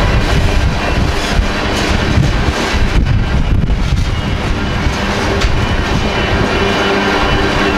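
Freight train of covered hopper cars rolling past at a grade crossing: a steady wheel-and-rail rumble with scattered sharp clacks as the wheels cross the rail joints. A crossing warning bell rings steadily over it.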